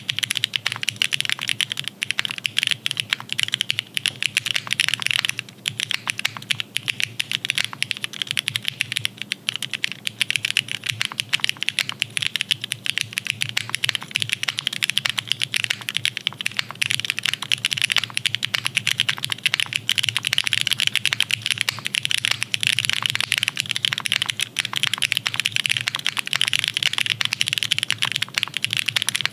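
Fast, continuous typing on a custom-built mechanical keyboard: a dense run of clacking keystrokes.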